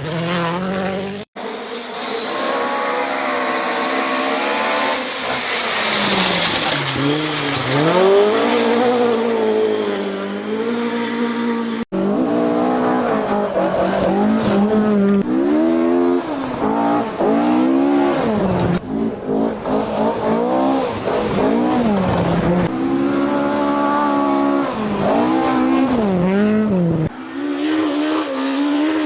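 Rally car engines run hard on a dirt stage. The pitch climbs and drops again and again as they rev through the gears, lifting and accelerating. The sound cuts off abruptly twice, about a second in and again about twelve seconds in, as one clip jumps to the next.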